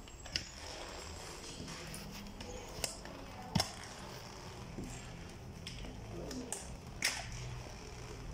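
Slow, irregular footsteps going down a stairwell: a few sharp steps spaced one to three seconds apart, the loudest about three and a half seconds in, over a low steady background hum.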